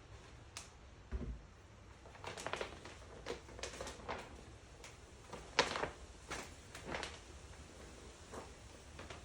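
Irregular short rustles and crinkles of the decal's stiff backing paper being peeled off the vinyl and handled, with a dull low thump about a second in.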